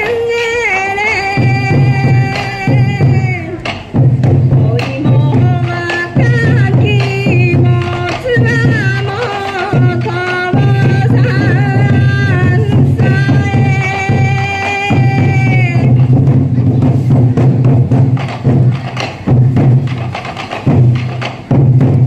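Sansa odori festival music: taiko drums beaten in a steady rhythm under a melody. About sixteen seconds in the melody drops out and the drums carry on alone.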